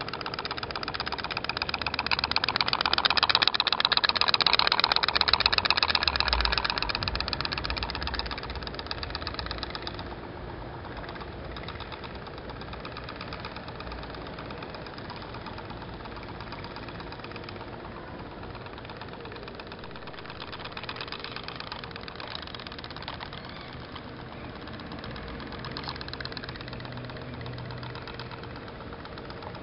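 Homemade pop-pop steam boat's pulse engine putt-putting in a rapid, even rhythm as the boat runs on the water. It is loudest in the first several seconds, then fainter and steady.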